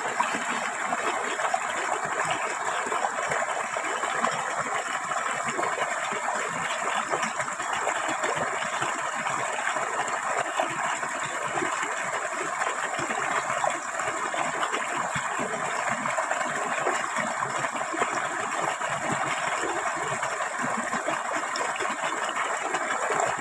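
Water flowing steadily, an even rushing that neither starts nor stops.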